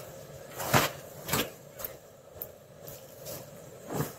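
Metal ladle knocking and clinking against a steel saucepan of boiling maple syrup, a few separate knocks with the loudest about a second in, over the steady hiss of the camp stove's burner.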